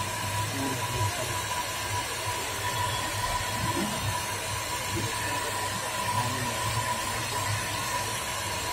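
Hot-air heat gun blowing steadily onto a phone's back glass: a constant rushing hiss over a low hum, with a faint steady whine. The heat softens the adhesive so the cracked back glass can be lifted off.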